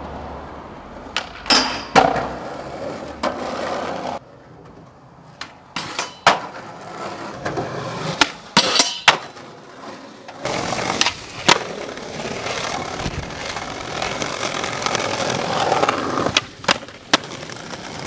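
Skateboard wheels rolling on hard ground, broken by many sharp clacks of the board popping and landing.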